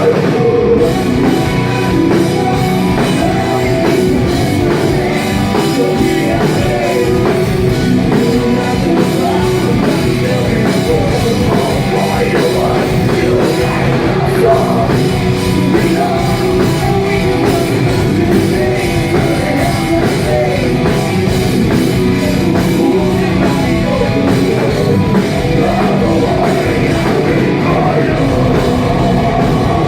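Live heavy metal band playing loud, with guitars, drum kit and vocals, overloaded and distorted through a phone's microphone.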